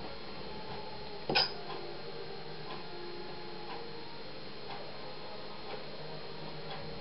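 A clock ticking faintly and evenly, about once a second. About a second in comes one sharp clink, a metal spoon knocking against a china plate as chopped dill is spooned onto a salad.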